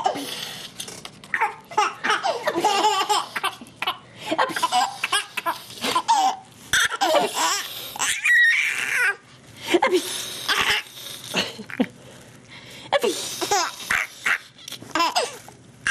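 A five-month-old baby laughing in repeated bouts, with short pauses between them.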